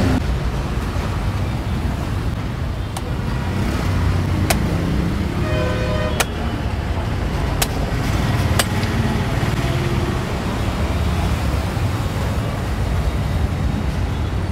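Steady street traffic rumble, with about five sharp knocks spread over the first nine seconds from a machete chopping into a tender coconut.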